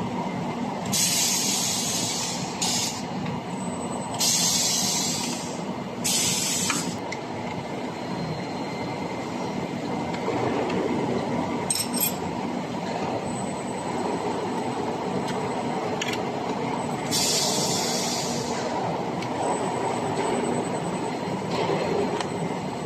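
Spiral duct forming machine running steadily, with several short bursts of high hissing and a single sharp click about halfway through.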